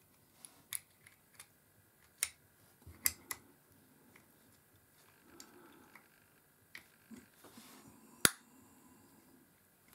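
Small metal clicks and taps as the side cover of a Shakespeare 2700 all-metal spinning reel is worked against the housing; it will not seat because the anti-reverse lever inside has not yet caught its gear. The clicks come irregularly, with one sharp, louder click about eight seconds in.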